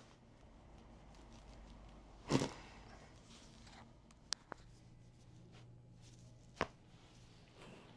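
Sharp cracks and knocks of a chiropractic back adjustment: a loud thump-like crack a couple of seconds in, two quick sharp clicks about halfway, and another crack near the end.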